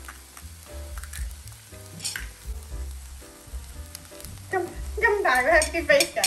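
Rice and freshly cracked eggs sizzling on a hot Korean barbecue grill pan, with chopsticks stirring and pushing the rice. Background music plays throughout. A loud, wavering voice rises over it from about four and a half seconds in.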